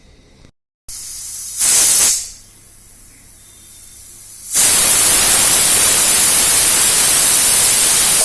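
Pressure cooker whistle: steam escaping through the weighted valve in a loud hiss as the cooker reaches full pressure, the signal that the rice is done. A short puff about a second and a half in, then a long steady blast from about halfway.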